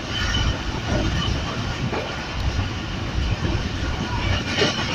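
Passenger train running at speed, a steady rumble of wheels on the track heard from aboard the carriage.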